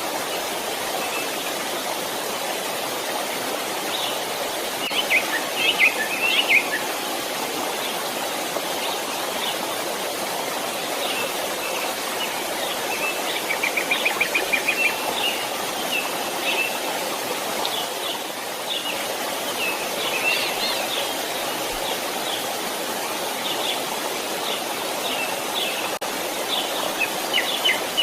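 Steady rush of a flowing stream, with small birds chirping on and off above it, including a quick trill about halfway through.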